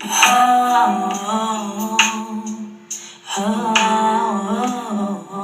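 Background music: a sung melody over sustained keyboard-like notes, with a few sharp percussive hits.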